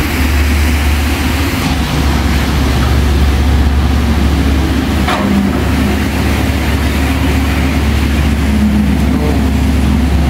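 An engine running steadily with a low rumble, with one or two faint brief knocks in the middle.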